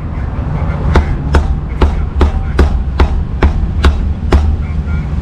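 A steel cleaver chopping braised pork on a thick round wooden chopping block: nine sharp, even chops at about two a second, starting about a second in, over a steady low rumble.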